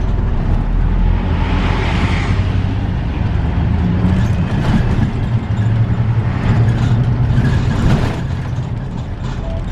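City bus engine and road noise heard from inside the cabin near the front while the bus drives along a winding road, a steady low drone that eases a little about eight seconds in.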